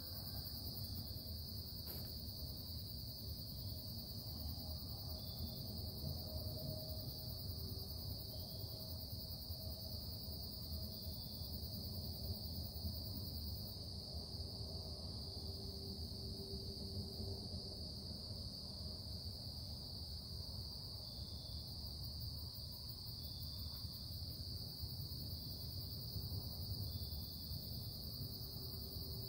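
Industrial production noise: a steady low rumble with a constant high whine over it, and faint tones wavering in between.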